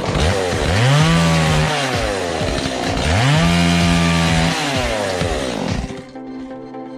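Chainsaw revving up twice, each time holding at high speed for about a second and a half before dropping back, as it saws scrap timber into firewood.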